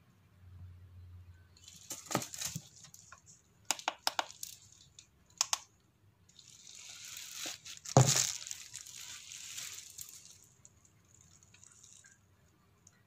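Plastic bubble wrap crinkling and rustling as the rice cooker is handled on it, with a few sharp clicks and one loud thump about eight seconds in.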